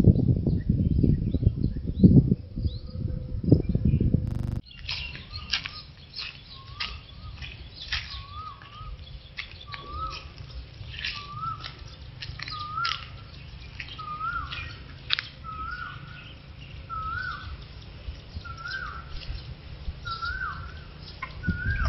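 Loud rustling and thumps for about four and a half seconds, then birds calling: one bird repeats a short wavy call about once a second, its pitch creeping slowly upward, among the sharp chirps of other birds.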